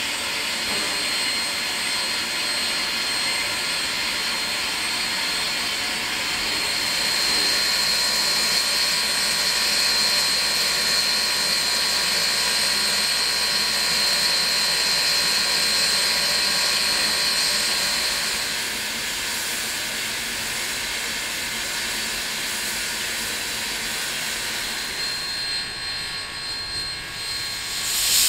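Steam locomotive hissing steadily while standing, with no exhaust beats, and a thin high whistle-like tone over the hiss. It swells louder for about ten seconds in the middle.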